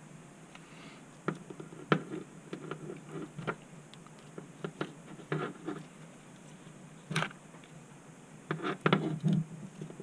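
Irregular small clicks and short scrapes of pry tools working around the edge of a Samsung Galaxy S8's glued back glass, prying the glass free of its adhesive. The loudest clicks come in clusters about two seconds in, about seven seconds in and near the end.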